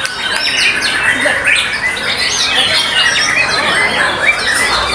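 White-rumped shama (murai batu) singing: a dense, continuous stream of quick high whistles that slide up and down, mixed with harsh, scratchy notes.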